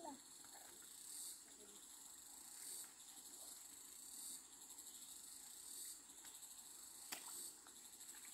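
Faint high-pitched insect trilling that swells and fades in phrases about every second and a half, with a faint click about seven seconds in.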